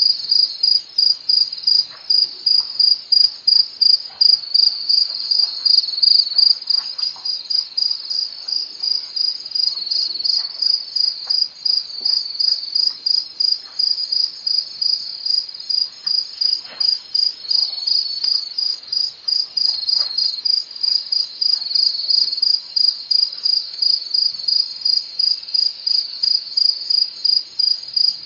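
Crickets chirping loudly in a fast, even rhythm of high-pitched pulses that never lets up, with faint scattered clicks and rustles beneath.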